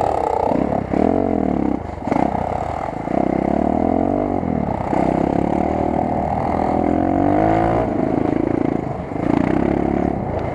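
Enduro motorcycle's single-cylinder four-stroke engine heard on board while riding, the revs climbing and dropping back over and over as the throttle is opened and eased off.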